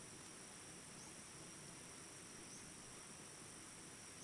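Crickets chirring faintly and steadily at night, over a low hiss of ambient noise.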